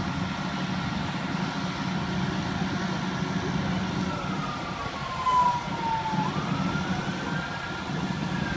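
A fire apparatus siren wails, coming in about halfway with a falling pitch, then rising again and slowly falling, over the steady low rumble of an idling truck engine.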